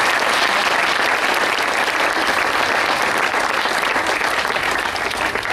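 Crowd applauding: many people clapping steadily.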